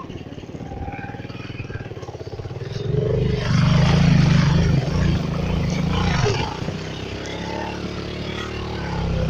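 Motorcycle engine running as the bike rides through floodwater, with water splashing around the wheels. Engine and splashing grow louder about three seconds in.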